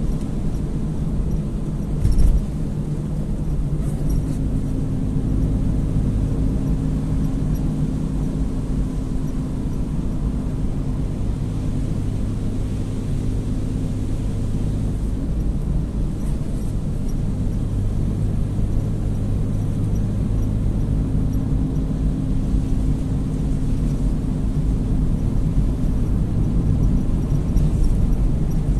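Car driving on a wet road, heard from inside the cabin: a steady low rumble of tyres and engine with a low engine hum, and one short thump about two seconds in.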